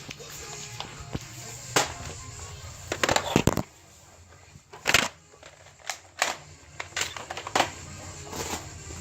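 Music playing, with scattered sharp clicks and knocks. The loudest are a cluster about three seconds in and a single one about five seconds in. The music drops out for a couple of seconds after the first cluster.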